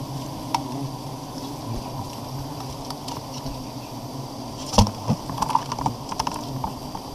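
Giant honey bees buzzing around an opened wild nest, a steady low hum throughout. A plastic bucket is handled against the comb: a sharp knock nearly five seconds in, then a run of lighter clicks and knocks.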